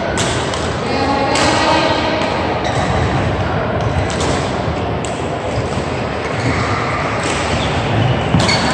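Badminton hall din: sharp cracks of rackets striking shuttlecocks, a few of them spaced a second or so apart, over a steady murmur of voices and play from many courts, echoing in the large hall.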